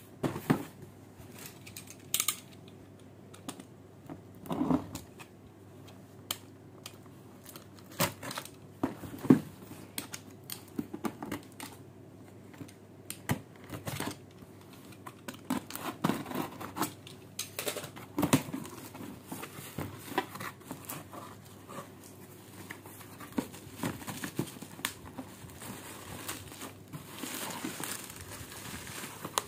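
Packaging of a bazooka bubble gun toy being handled and opened: irregular clicks and knocks, with crinkling that gets denser near the end.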